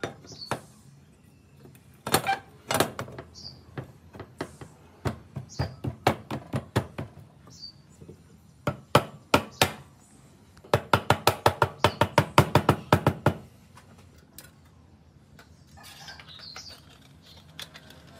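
Sharp knocks and taps, scattered at first, then a fast even run of about a dozen taps, roughly five a second, lasting nearly three seconds a little past the middle.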